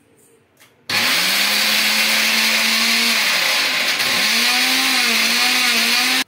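Electric mixer grinder with a small steel jar grinding grated fresh coconut dry, to a powder. The motor starts about a second in and runs loud, its whine sagging in pitch near the middle and picking up again, then stops suddenly at the end.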